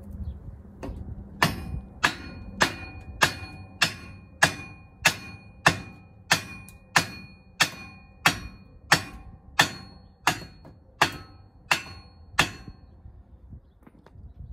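Shop hammer striking the steel receiver hitch tube about eighteen times at an even pace, a little under two blows a second, with a short metallic ring after each blow. The blows tap the tube sideways through its mounting brackets to center it.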